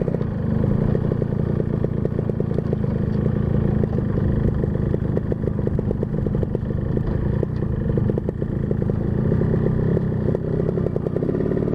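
Single motorcycle engine running steadily while being ridden, with a fast even pulse of firing strokes. The air box filter is refitted over an oversized carburetor, which keeps the intake from snoring.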